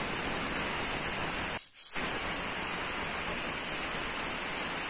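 Pressure cooker whistling: steam jets out under the weight valve in a steady hiss with a shrill high whistle tone, broken briefly once under two seconds in. The cooker has come up to pressure, the sign that the biryani rice inside is cooking on high flame.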